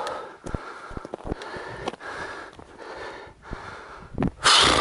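Fast, heavy breathing of a hunter out of breath from walking at about 2,900 m altitude, in puffs about twice a second, mixed with short footstep clicks. A louder rush of noise comes near the end.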